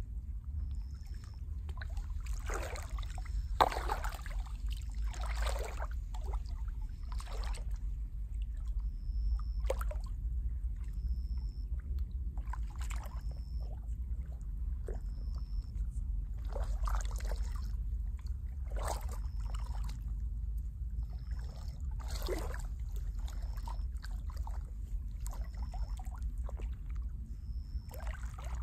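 Thick wet mud squelching and sloshing around legs moving knee-deep in it, in irregular wet bursts every second or two, the sharpest about three and a half seconds in, over a steady low rumble.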